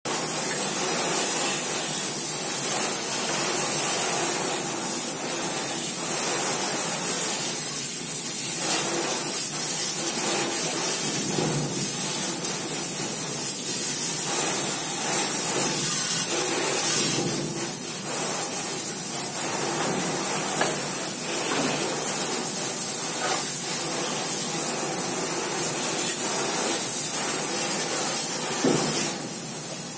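Garden hose spray nozzle hissing steadily, its jet of water spattering on a road bicycle's frame and wheels. The spray falls off a little just before the end.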